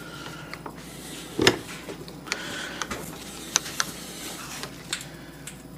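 Hand tools being handled on metal: a handful of light clicks and knocks as the beam-type torque wrench is fitted onto the socket and brought to bear, the loudest about a second and a half in.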